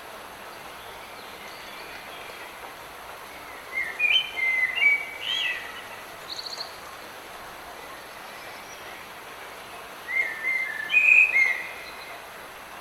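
Light rain falling as a steady hiss, with a songbird singing two warbled phrases, about four seconds in and again about ten seconds in, and a brief high trill between them.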